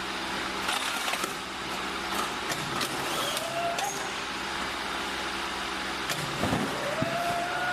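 Steady mechanical background noise with scattered sharp clicks and a few short rising whines, and a low rumble near the end.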